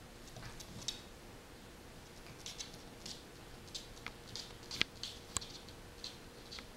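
A puppy's claws clicking and ticking irregularly on a wooden floor as it walks about, with two sharper clicks a little past the middle.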